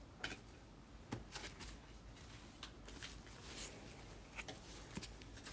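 Faint handling of trading cards: a few scattered light clicks and rustles.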